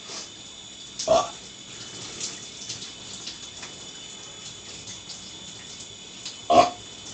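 Two short, loud burps, one about a second in and a louder one near the end, over the steady hiss of a running shower.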